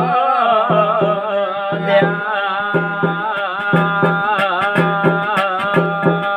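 Garhwali jagar folk music: a held melodic line with wavering ornaments over quick, regular hand-drum strokes.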